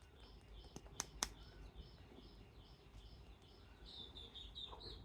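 Faint, high repeated chirps, about two to three a second, growing a little stronger near the end, with a few light clicks about a second in.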